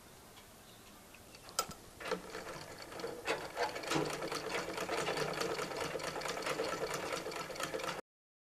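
Domestic sewing machine stitching a hand-gathered ruffle strip, running with a fast, even clicking of the needle. It starts about two seconds in, gets louder a second later, and cuts off suddenly near the end.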